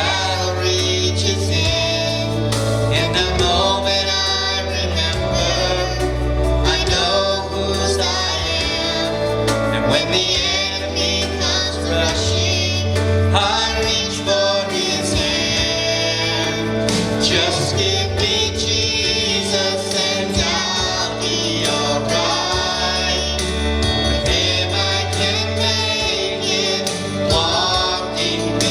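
Gospel song with singing over a musical accompaniment, with a sustained bass line that changes notes every few seconds.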